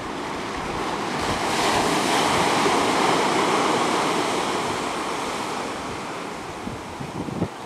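Sea waves breaking on rocks: one surge of surf swells about a second in and dies away over several seconds, with wind on the microphone.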